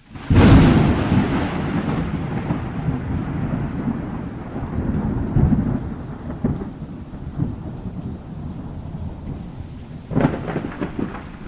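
Thunderstorm: a sharp thunderclap about half a second in rolls into a long low rumble that slowly fades, over steady rain. A second, crackling peal of thunder breaks about ten seconds in.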